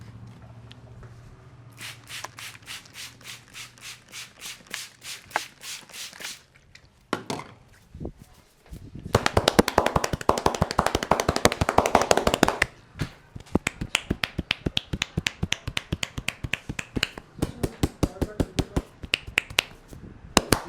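Hands tapping and slapping on a head in rapid rhythmic strokes of a percussive head massage. An even run of taps starts about two seconds in, a faster, louder burst of slaps comes around the middle, and quick tapping follows.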